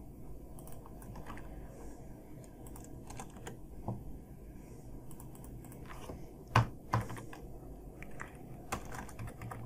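Computer keyboard typing: scattered, quiet keystroke clicks, with a few sharper ones about four seconds in and again around six to seven seconds in.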